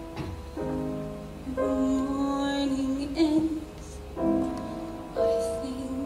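Piano playing slow, held chords, about four struck in a few seconds, each left to ring and fade.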